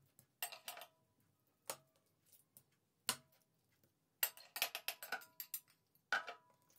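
Metal spoon clinking and scraping against a plate while sauce is spread over raw chicken breasts. A few separate taps, then a quick run of clicks about four seconds in, some with a brief ring.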